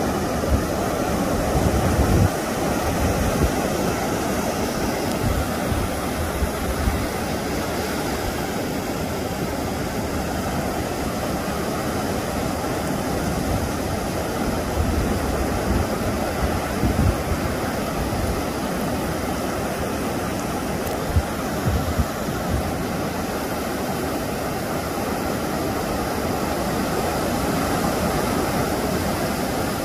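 Ocean surf breaking and washing up a sandy beach, a steady rushing roar, with gusts of wind rumbling on the microphone now and then.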